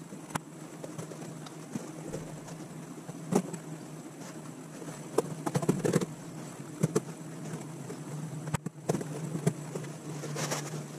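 Boards and a bar clamp being handled on a wooden workbench: scattered knocks and clatters, with a busy cluster about halfway through, over a steady low hum.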